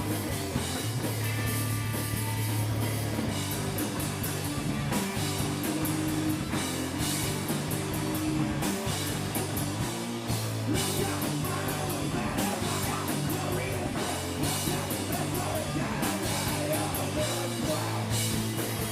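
A rock band playing live: guitar, bass and drum kit with steady drum and cymbal hits under sustained bass notes.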